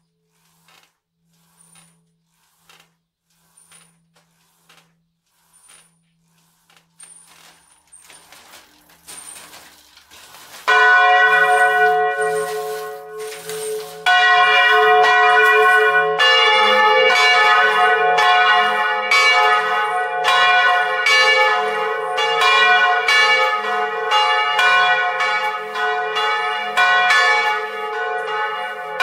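Faint regular ticking from the bell mechanism for about ten seconds, then a swinging bronze church bell starts striking loudly, still hung on its original headstock and clapper. A second bell joins a few seconds later and the two ring together.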